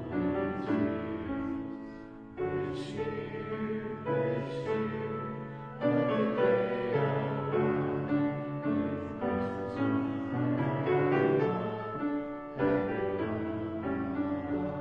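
A congregation singing a verse of a hymn with piano accompaniment.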